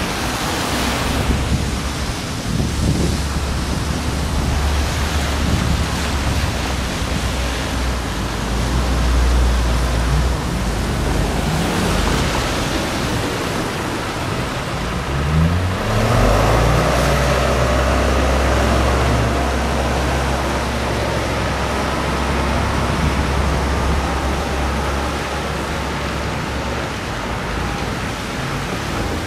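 Road traffic passing through an intersection on wet pavement: car engines and tyre hiss over a steady low rumble. About halfway through, one vehicle's engine rises in pitch as it accelerates away, followed by a steady engine whine for a few seconds.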